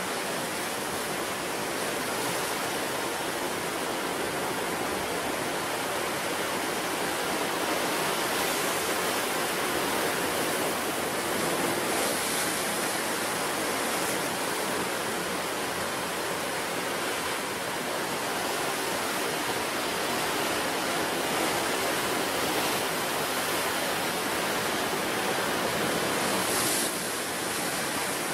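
Ocean surf: breaking waves washing onto the shore in a steady, continuous rush that swells and eases slightly.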